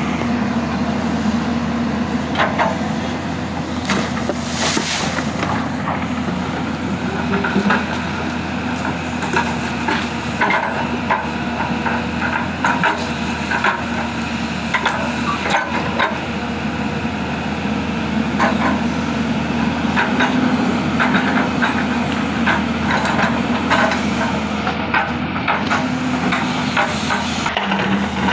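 Hyundai crawler excavator's diesel engine running steadily under load while it digs a riverbed, with repeated knocks and cracks from the bucket and branches. A brief hiss comes about four seconds in.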